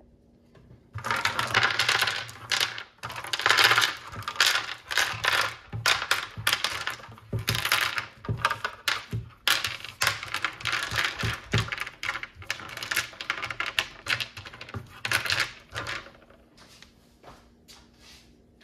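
River pebbles clattering and clacking against one another and the mold as they are dropped and shuffled into place by hand: a dense, irregular run of hard clicks that thins to a few faint clicks near the end.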